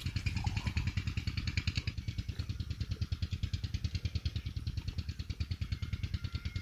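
An engine idling unseen, a steady rapid low chug of about ten beats a second.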